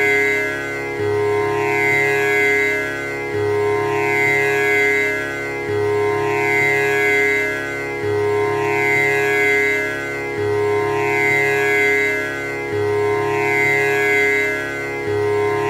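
Tanpura drone: its strings plucked in a steady repeating cycle about every two and a half seconds, the low string entering at the start of each cycle, with the sustained buzzing shimmer of the strings ringing over one another.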